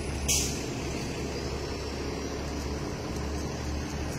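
Steady low outdoor background rumble, with a brief hiss about half a second in.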